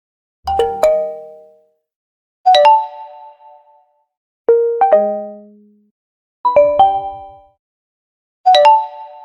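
Five different Oppo smartphone notification tones played one after another. Each is a short chime of two or three quick bright notes that rings out for about a second, and a new one starts about every two seconds.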